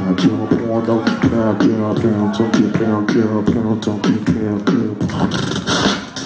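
Live human beatboxing through a PA in a concert hall: rapid mouth-percussion clicks and snares under a hummed, wavering pitched line in repeating phrases. The pattern breaks off near the end.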